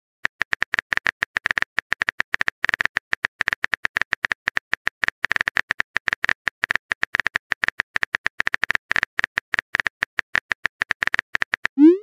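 Rapid, unevenly spaced keypress clicks from a texting app's typing sound effect, as a message is typed out letter by letter.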